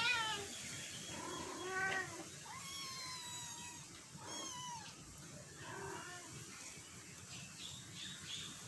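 Month-old kittens mewing: five or six high-pitched meows, one of them drawn out for about a second, becoming fainter in the second half.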